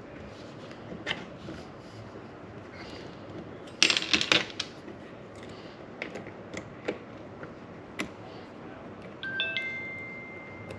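Small metal tools and parts being handled, with scattered clicks and a quick rattle of clicks about four seconds in. Near the end a metal piece rings with a clear tone that fades.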